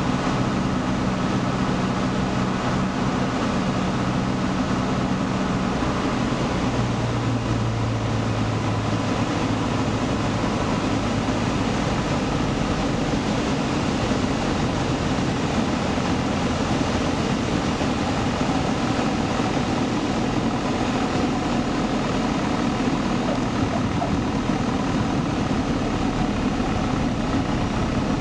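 A Piper PA-28-140 Cherokee's four-cylinder Lycoming engine and propeller, heard from inside the cockpit on final approach and landing, with a steady drone throughout. The engine note drops and fades about seven seconds in as power comes back, and a plainer steady rumble carries on after that.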